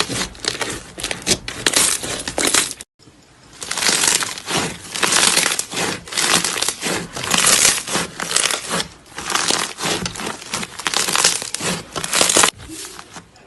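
Slime being squeezed and pressed by hand, giving dense runs of small clicks and pops in repeated swells of about a second each, with a brief break about three seconds in.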